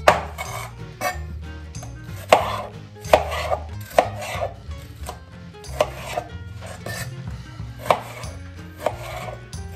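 A santoku knife chopping bell peppers on a plastic cutting board. The blade strikes the board sharply about a dozen times at an uneven pace, about once a second.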